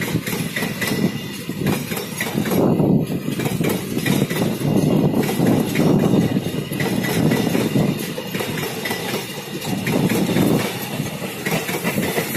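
Empty container flat wagons of a long freight train rolling past on the track: a steady wheel-on-rail rumble that swells and eases, with a scatter of clicks and rattles from the wheels and bogies.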